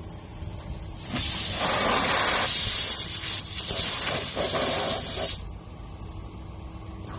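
Compressed air hissing loudly out of a car tire's punctured tread through the reamed hole. It runs for about four seconds with a brief dip in the middle, then cuts off abruptly.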